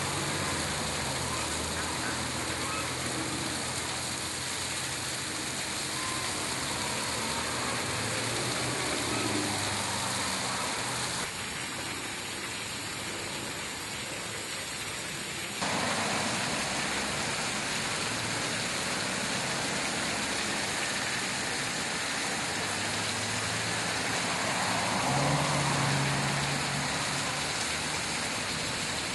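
Road traffic going by, with a steady hiss; the rumble of a passing vehicle's engine swells near the start and again near the end.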